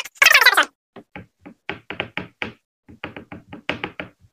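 Quick, uneven tapping of a hard edge on a desktop, chopping powder. The taps come about five a second in two runs, with a short pause near the middle.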